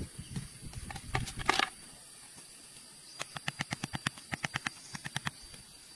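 Scraping and rustling in dirt and dry leaves, then a quick run of light, sharp taps, several a second for about two seconds, as a claw hammer drives a thin wooden stick into the ground.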